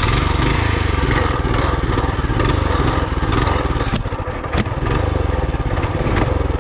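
Trailmaster MB200 mini bike's 196cc single-cylinder engine, its governor modified, running steadily with a brief dip in level a little past the middle.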